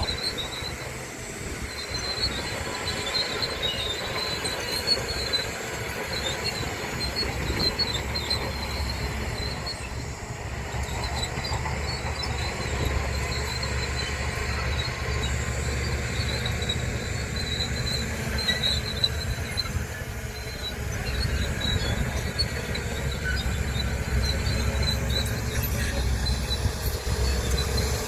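Crawler bulldozer working: its diesel engine running steadily under load while the steel tracks squeal continuously.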